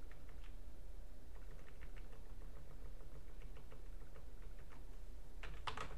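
Computer keyboard being typed on: soft, scattered key clicks in short runs, with a few louder keystrokes near the end, over a low steady hum.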